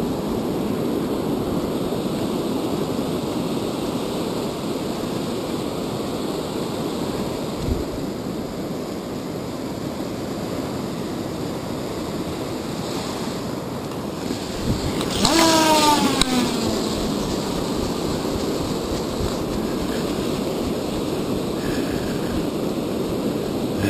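Surf washing on a sandy beach with wind buffeting the microphone, a steady rush. About fifteen seconds in, a single pitched call drops in pitch over a second or so.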